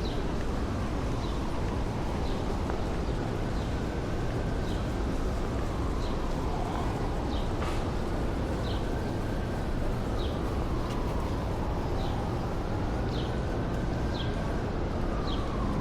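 Distant siren wailing slowly up and down over the low, steady rumble of city traffic, while a bird repeats a short high chirp about once a second.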